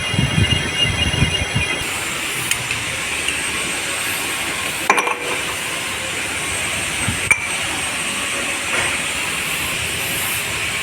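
Metal lathe machining a part: a high squealing whine from the cut stops about two seconds in. The machine keeps running with a steady hiss, and two sharp metallic clinks come later.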